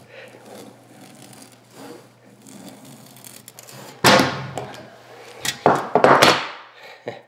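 A hand saw and a bar clamp worked on a rubber lacrosse ball on a stone counter: faint scraping for a few seconds, then from about four seconds in several loud rasping strokes and knocks.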